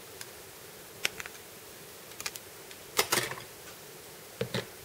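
Small plastic model-car parts being handled and fitted: scattered light clicks and taps, the loudest cluster about three seconds in, over a faint steady hum.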